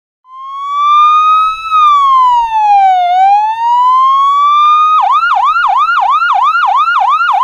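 Ambulance siren sound effect played loud: one slow wail that rises, falls and rises again, then switches about five seconds in to a fast yelp of about three to four sweeps a second.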